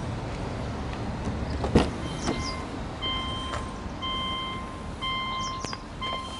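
The Subaru Legacy wagon's driver's door latch clicks open about two seconds in. Then the car's key-reminder warning chime beeps steadily about once a second, each beep about half a second long: the key is left in the ignition with the door open.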